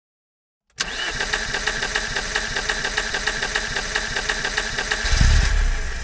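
Car engine being cranked by its starter motor: a rapid, even chugging with a steady starter whine that starts suddenly under a second in, the sound of an engine that cranks but won't start. About five seconds in a deeper rumble swells under the cranking.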